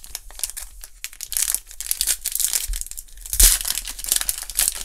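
A foil trading-card pack wrapper, a 2016-17 Panini Threads basketball pack, torn open and crinkled in the hands. It gives a dense, continuous crackle that is loudest about three and a half seconds in.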